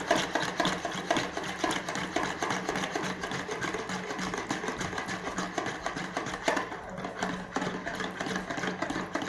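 Electric hand mixer beating a liquid mix of milk, eggs, sugar, yeast and oil in a bowl. It runs steadily and cuts off suddenly at the end.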